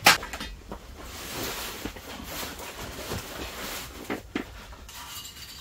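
Light rain falling on a canvas wall tent, a steady hiss that fades out about five seconds in, with a few soft knocks from gear being handled.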